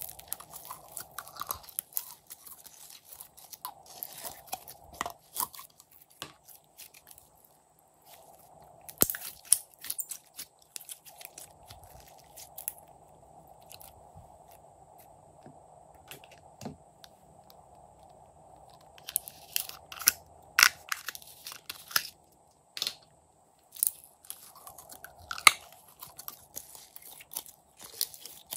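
Glossy glitter slime squeezed out of plastic jars and worked by hand, giving clusters of sticky crackling and popping clicks with quieter stretches between. A faint steady hum runs underneath.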